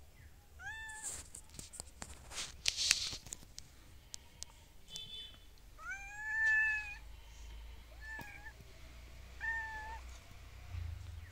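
A cat meowing about four times, short calls with the longest and loudest about six seconds in, together with a run of sharp clicks and knocks in the first few seconds.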